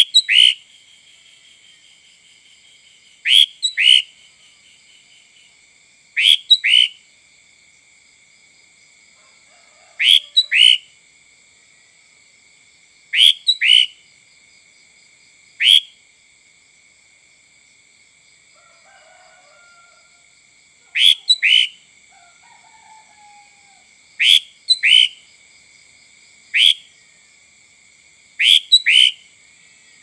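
Sooty-headed bulbul (kutilang) singing short whistled phrases of two or three quick notes, repeated about every two to three seconds, about ten phrases in all.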